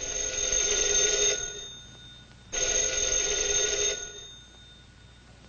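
Black rotary desk telephone's bell ringing: two rings of about a second and a half each, with a pause of about a second between them, and a third ring starting right at the end.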